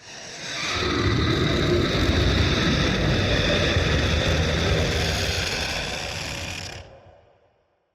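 Distorted industrial horror sound effect: a dense, rough mechanical rumble with a hissing top that swells in over about a second, holds steady, and fades out near the end.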